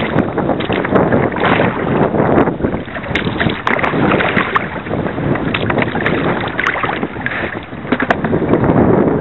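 Wind rushing over the microphone and water moving around a kayak: a loud, uneven rushing noise with scattered small clicks.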